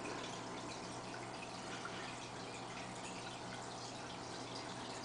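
Aquarium water trickling and dripping, a steady hiss dotted with small drops, over a low steady hum.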